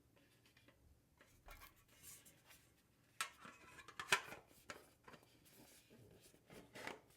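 Small clicks, taps and rustling from perfume bottles and their packaging being handled, with the loudest knocks about three and four seconds in and another near the end.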